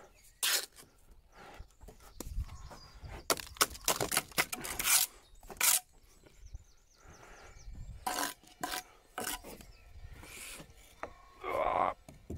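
Steel bricklaying trowel scraping wet mortar off the joints and faces of stone blocks while laying a stone wall, in short irregular strokes with sharp knocks of trowel and stone. There is a longer scrape near the end.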